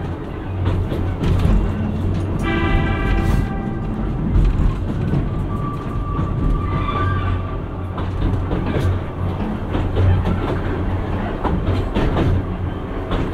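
Passenger coach of a diesel-locomotive-pushed train running slowly, heard from inside: a steady low running rumble with wheels clicking over rail joints. A short high tone sounds for about a second a couple of seconds in, and a thin squeal rises briefly about halfway through.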